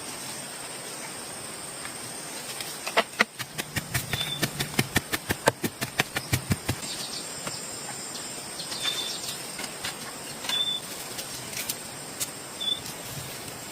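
A quick run of sharp knocks, about four a second for some four seconds, then a few scattered single knocks, over a steady hiss with a constant high whine. A short high chirp sounds four times.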